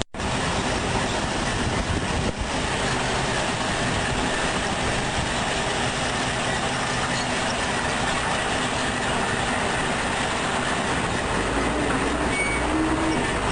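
Rotary drum sludge dryer plant running: a loud, steady mechanical din with no clear rhythm.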